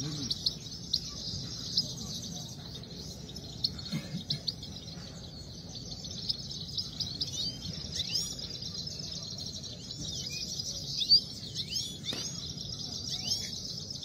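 Caged Himalayan goldfinches (saira) singing against each other: a fast, continuous twittering song of rapid chirps and trills, with short rising and falling notes.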